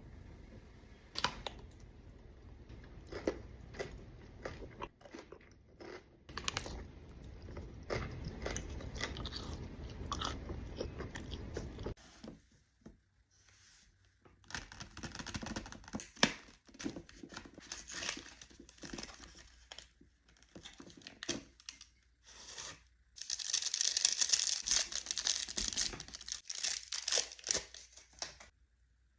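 Close-miked chewing and crunching of Ferrero Rocher chocolates, the crisp wafer shell and chopped hazelnut coating cracking between the teeth in irregular bites. A louder, crackly stretch comes near the end.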